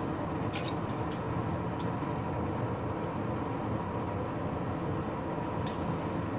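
Steady low room hum and hiss, with a few faint soft clicks and rustles from hands sectioning hair and handling plastic claw clips.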